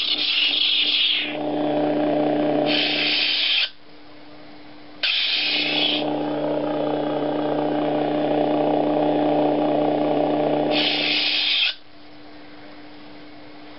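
LED lightsaber's Nano Biscotte sound board playing through its small speaker: a steady electric hum with a short hissing swing sound at the start. It shuts off with a hiss about three and a half seconds in, ignites again with a hiss about five seconds in, hums, and shuts off again near the end.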